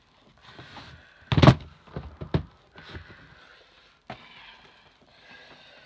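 Plastic VHS cassettes being handled and set down: a few knocks and thunks, the loudest about a second and a half in.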